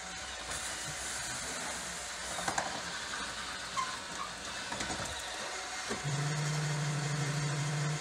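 Roomba 650 robot vacuum running with a steady whir of its vacuum fan and brushes while it works at the foot of a cardboard ramp, with a few knocks as it bumps the cardboard. About six seconds in, a low steady hum sets in and holds.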